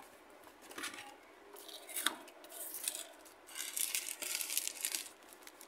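Stiff cardboard lotería boards rustling and flexing as they are handled and shuffled, in several bursts, the longest and loudest near the end, with a sharp click about two seconds in.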